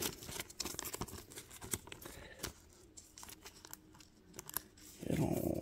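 Thin clear plastic card sleeve crinkling as a trading card is worked into it by hand, with scattered faint crackles and rustles.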